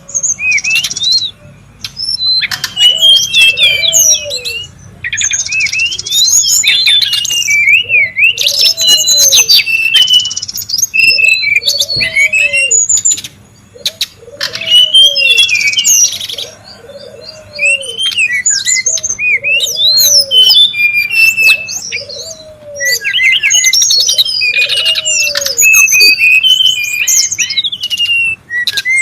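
Brown-chested jungle flycatcher calling excitedly: bursts of rapid, chattering twitters and whistles a few seconds long, with short pauses between them. Under the song, a low arched note repeats about once a second.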